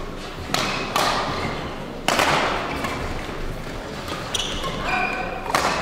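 Badminton rally: sharp racket hits on the shuttlecock, four in a few seconds, each echoing in a large sports hall. Shoe soles squeak on the court floor shortly before the last hit.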